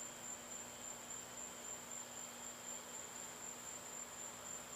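Night insect chorus: a steady high-pitched trill over a faint even hiss.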